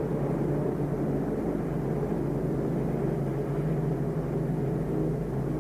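Propeller aircraft engines droning steadily, an even low hum with no break.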